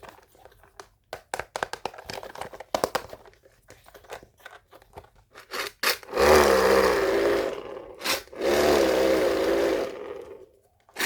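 Handling noise: scattered small clicks and crinkles, then a long, loud scraping rub with a wavering pitch about six seconds in. It breaks off briefly near eight seconds and resumes.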